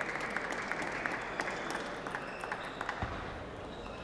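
Spectators applauding, a dense patter of many hand claps that thins out about three seconds in.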